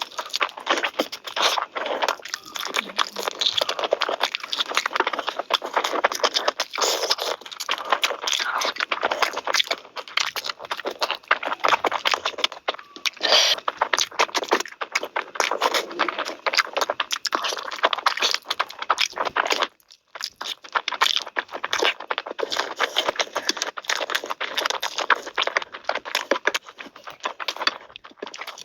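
Close-miked eating sounds: dense chewing, crunching and tearing of food, with scraping, broken by a brief pause about twenty seconds in.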